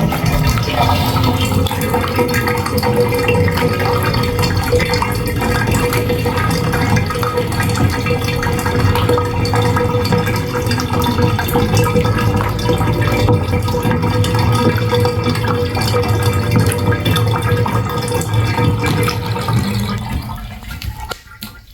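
Water running and draining through a tub drain, over a steady hum, fading out near the end.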